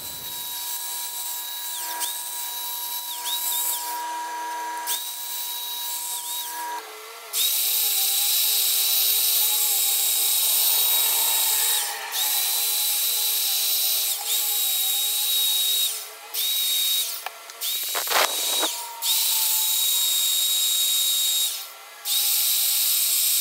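Neiko corded electric drill spinning a sanding disc against a wooden bowl turning on a lathe, an 80-grit pass to work out tool tear-out: a steady motor whine with a sanding hiss. It gets louder after about seven seconds, cuts out briefly several times in the second half, and there is one sharp knock near the end.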